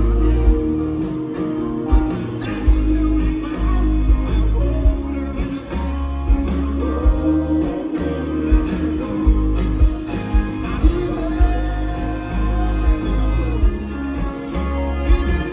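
A live band performing a song: a male lead voice singing over electric guitar, bass and drums, with a steady drum beat, heard from the audience at a concert.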